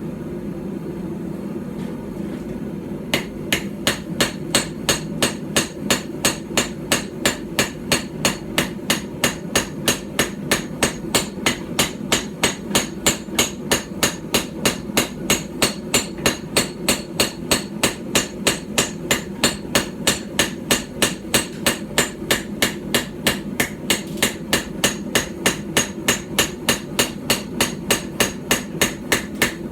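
Small hand-forged hammer, about 12 ounces, striking hot steel on a stump anvil in a steady rhythm of about three blows a second, starting about three seconds in: the smith is hammering the bevels into a small knife blade. A steady low hum runs underneath.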